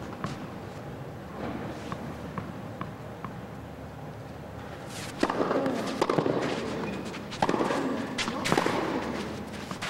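Tennis ball bounced on the clay a few times before a serve, with faint clicks. Then, about halfway through, the serve and rally: loud racket strikes on the ball about every second.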